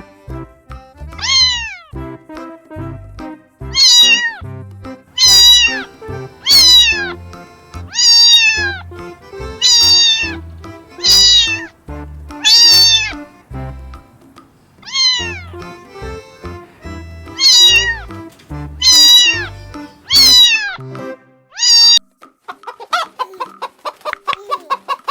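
Domestic cat meowing over and over, about a dozen short meows that each fall in pitch, over background music. Near the end the meows stop and a chicken starts clucking in quick repeated notes.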